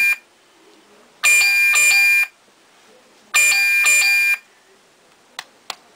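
Voice-recognition alarm clock's electronic alarm sounding: a chiming beep pattern about a second long, repeated every two seconds or so. Two sharp clicks follow near the end.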